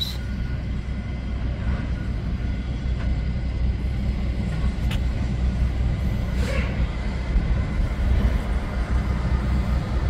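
Steady low rumble of vehicle traffic.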